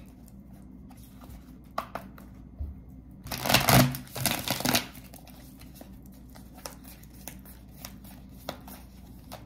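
A tarot deck being shuffled by hand: light, quick clicks and flicks of cards, with a louder, longer rush of card noise about three to five seconds in.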